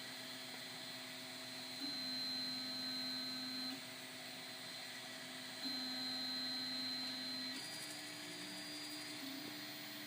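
3D printer running, its stepper motors whining in steady tones that jump in pitch as the moves change. The whine grows louder for two stretches of about two seconds each, starting about two seconds in and again near six seconds in.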